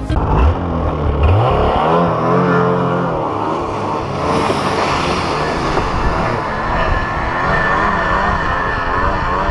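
Snowmobile engine revving up as it pulls away in the first second or two, then running on steadily with a wavering pitch under the load of towing a broken-down snow bike on a rope.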